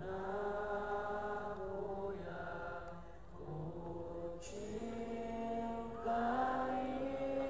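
Sholawat (Islamic devotional song) sung over a concert PA system, long melismatic held notes that slide between pitches, growing louder about six seconds in.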